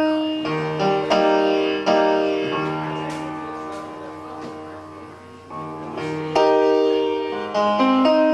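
Piano-like keyboard chords, struck one after another and left to ring out and fade. They sound out the song's key during a sound check.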